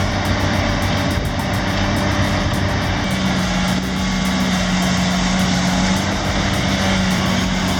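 A heavy machine's engine running steadily, its note shifting slightly about three seconds in.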